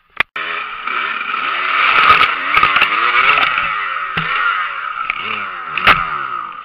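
Dirt bike engine revving up and down hard as the bike ploughs through deep water, with water splashing and a few sharp knocks.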